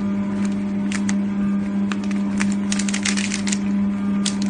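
Plastic bag crinkling and crackling as it is twisted and pulled by hand to test its heat seal, in rapid clicky crackles that are densest in the middle. Under it is the steady hum of the FR900 continuous band sealer running.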